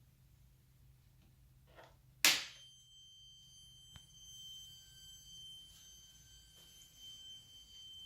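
Bumpboxx UpRock V1 speaker giving a loud pop about two seconds in as it comes on, then a steady high-pitched tone made of several thin pitches. The noise comes with all volume knobs turned off, a fault in the speaker.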